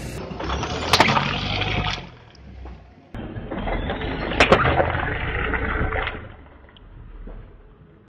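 A slow-rolling car tyre crushing plastic toothpaste tubes on asphalt, with sharp cracks and a wet squish as the tubes split and the paste is forced out, over the low rumble of the car. It happens twice: a loud crack about a second in, and another about four and a half seconds in.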